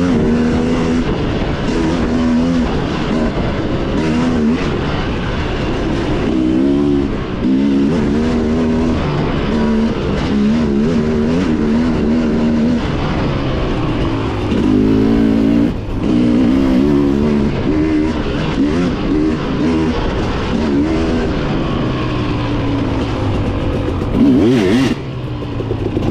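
Small dirt bike engine running and revving, its pitch rising and falling again and again, with one sharp rev near the end.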